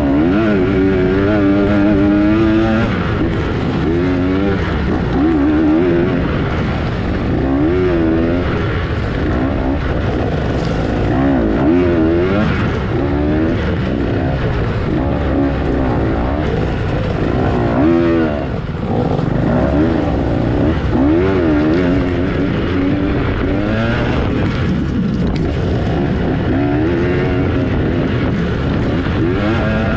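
Dirt bike engine ridden hard off-road. It revs up and down over and over as the throttle is opened and closed every second or so.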